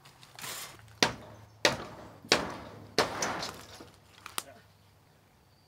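Claw hammer knocking on old wooden boards, four sharp blows about two thirds of a second apart, with rasping and cracking between them as a board is worked loose, then two light clicks.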